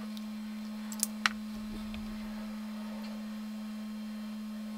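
Steady electrical hum, with two sharp clicks about a second in and a fainter one just after.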